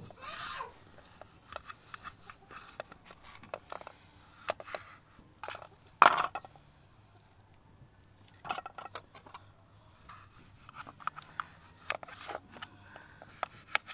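Kitchen knife scraping and tapping against a shallow metal pan as raw chicken is cut, in short irregular clicks and scrapes, with one much louder sharp sound about six seconds in.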